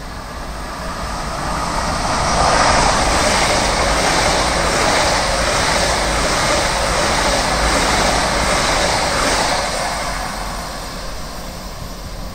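A train passing at speed. The wheel-and-rail noise swells over the first two seconds, holds loud for about seven seconds, and then fades away.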